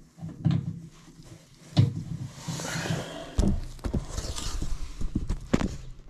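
Irregular knocks, clunks and scraping of tools and drain parts being handled at a bathtub drain, with about four sharper knocks standing out.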